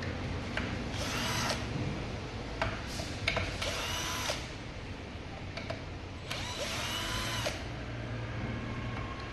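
Hand-held power drill/driver running in several short bursts, its motor whine rising in pitch as it spins up and dropping as it stops each time.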